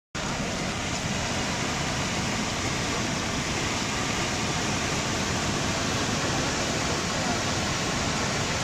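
Floodwater pouring over a dam's overflow spillway and churning below it: a steady rush of water.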